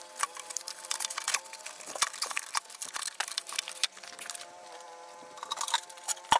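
Scattered light clicks and knocks of an intake manifold and its fittings being wiggled and pushed against parts in a car's engine bay, with a quieter pause about four seconds in.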